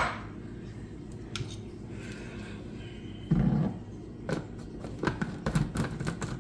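Plastic NutriBullet cup being handled and its blade lid fitted on. A dull knock comes about three seconds in, then a quick run of small plastic clicks.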